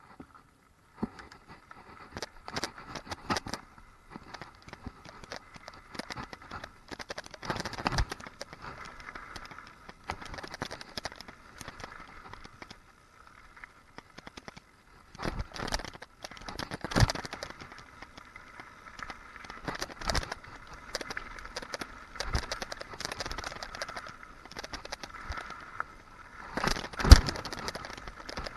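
Hardtail mountain bike rattling over a rough dirt trail, with repeated sharp knocks and clatter as the wheels hit bumps, the loudest knock near the end.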